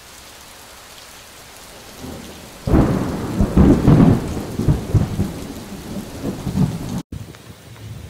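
Heavy rain hissing, then a loud clap of thunder about two and a half seconds in that rolls and rumbles for several seconds. The sound cuts off abruptly a second before the end, leaving only the rain.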